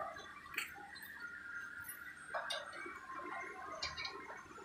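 A few scattered light clicks and taps, the kind made when stainless steel chair parts and fittings are handled during assembly, over a faint background.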